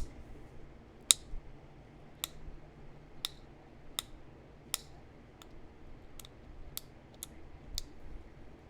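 Pressure flaking of a heat-treated chert point: about ten sharp clicks, roughly one a second, as small flakes pop off under the flaker.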